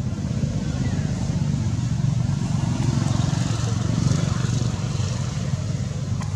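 Steady low drone of a running engine.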